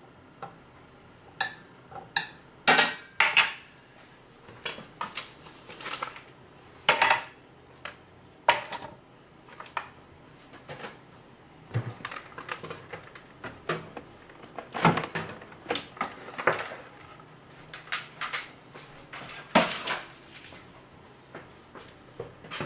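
Kitchen utensils and dishes clinking and clattering: a long, irregular series of sharp knocks and clinks, the loudest around three, seven, fifteen and twenty seconds in.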